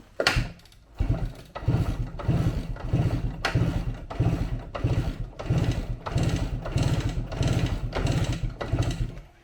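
A 1975 dirt bike's two-stroke engine, on a freshly fitted carburetor, is kicked over with a single knock. About a second in it catches and runs for roughly eight seconds, unevenly, swelling and fading about twice a second, then cuts off suddenly.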